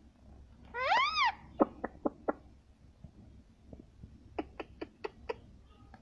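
Rose-ringed parakeet giving one drawn-out call that rises and then falls, about a second in. Sharp clicks of its beak tapping follow: a few right after the call, and a quicker run of about six near the end.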